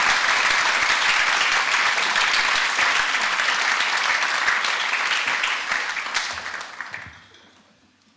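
Audience applauding, dense and steady, dying away near the end.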